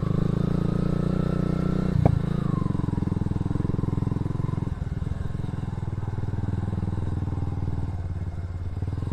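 Motorcycle engine running steadily under way, with a single sharp knock about two seconds in.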